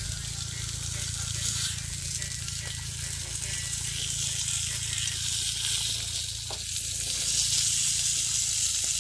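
Whole tilapia sizzling on a gas stove's grill plate, a steady hiss, with a low steady hum underneath.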